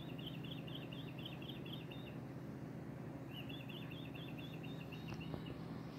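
Bird song played through a TV speaker from a bird video, with two runs of quick repeated chirping notes at about four a second. The second run starts a little after three seconds in. A low steady hum sits underneath.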